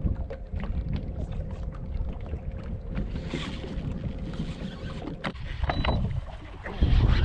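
Wind buffeting the microphone and small waves lapping against the hull of a small boat, with scattered light clicks and a faint steady hum that stops about five seconds in; the rumble grows louder near the end.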